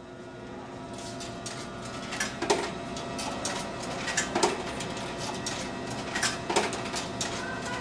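Vending machine running with a steady mechanical hum, with several sharp knocks and clicks over it as it is operated.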